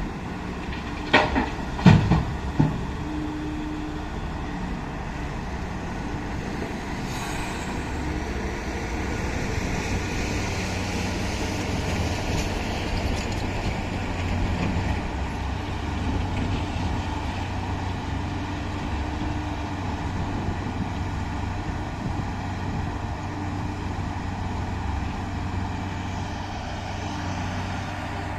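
Heavy mining diesel engines of a Hitachi EX2000 excavator and Cat 777 haul trucks running steadily, with three or four loud bangs about one to three seconds in.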